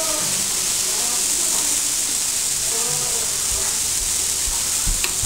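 Chicken sizzling steadily as it cooks, with a short knock near the end.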